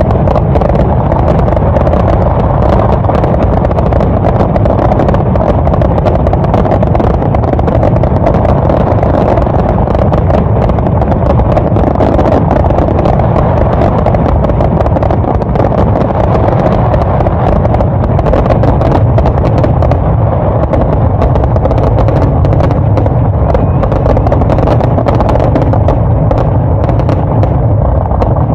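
Aerial fireworks barrage: shells bursting in rapid succession, the booms and crackles running together into a continuous loud din.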